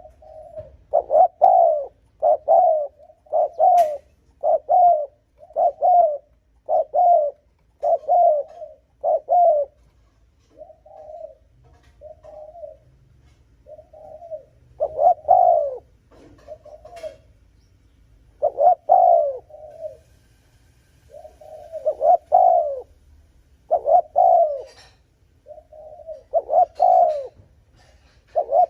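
Spotted dove cooing in a long run of short, quick coos, about one a second, some loud and some softer.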